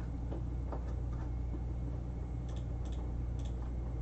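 Quiet room tone: a steady low hum, with a few faint ticks between about two and a half and three and a half seconds in.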